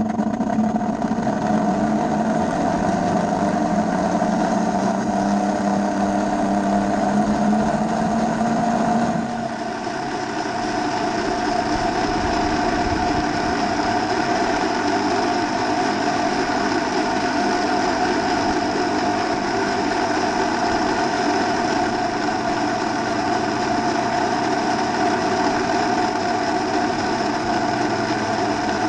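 Miniature garden railway train running along its track, heard from on board: a steady mechanical drone of wheels and drive with a high whine. The lower part of the drone drops away about nine seconds in.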